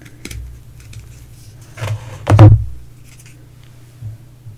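Lid being pulled off a small gravy cup by hand close to the microphone: a few light clicks, then a sharp crackle with a thud about two and a half seconds in as the lid comes free.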